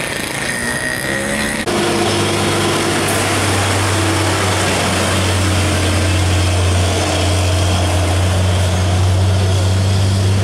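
Heavy truck's diesel engine running close by as it passes, a steady deep drone over road and traffic noise. It comes in suddenly and loud about two seconds in.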